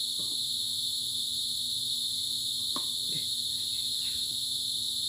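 Steady high-pitched drone of an insect chorus, with a couple of faint short ticks about three seconds in.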